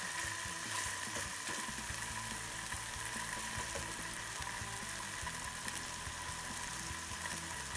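Diced firm tofu frying in olive oil and soy sauce in a nonstick pan, a steady sizzle with small crackles as the soy sauce cooks down.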